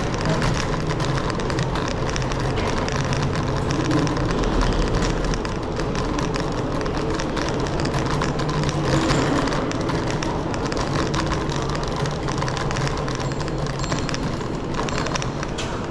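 Scooter riding through a road tunnel: steady rolling and wind noise with a low hum, echoing off the tunnel walls, with frequent small clicks and rattles.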